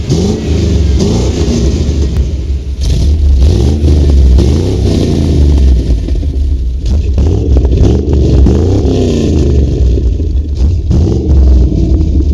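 1996 Ford Bronco's 5.8-litre 351 Windsor V8 running loud through long-tube headers and dual Flowmaster Super 44 mufflers, revved again and again while standing, its exhaust note rising and falling with each blip.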